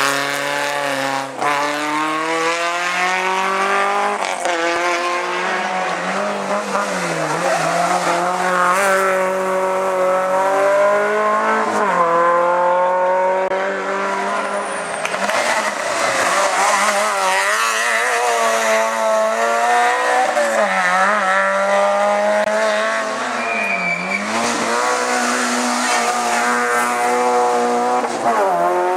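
Hillclimb race car engine revving hard, its pitch climbing in repeated sweeps and dropping sharply every few seconds as it shifts and brakes for corners.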